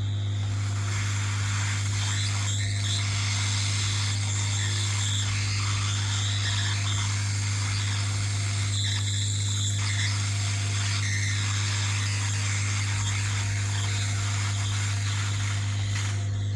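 Hot air rework station blowing onto a TV main board: a steady rushing hiss with a few brief dips, over a constant low hum, as the solder joints are reflowed to clear suspected dry joints behind an HDMI no-signal fault.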